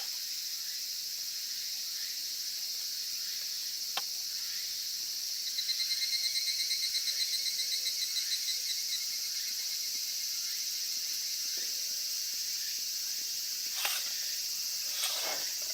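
Steady high-pitched chorus of insects. A rapid pulsed trill stands out for about three seconds near the middle, and there are a few light clicks near the start and the end.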